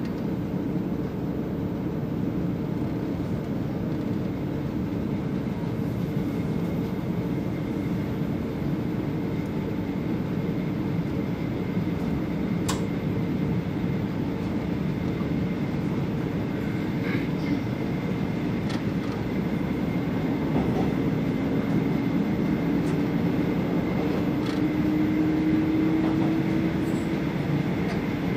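Passenger train running at high speed, heard from the gap at the coupling between two vehicles: a steady, dense roar of wheels on rail, with a few sharp ticks and a faint whine that rises slowly in pitch over the last several seconds.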